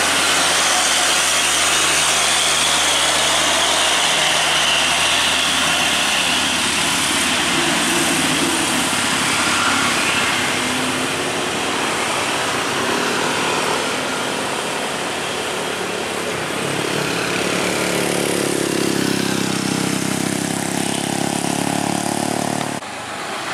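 Heavy cargo truck's diesel engine labouring up a steep hill, mixed with tyre and traffic noise. About three-quarters of the way through a passing engine rises in pitch, and the sound drops abruptly just before the end.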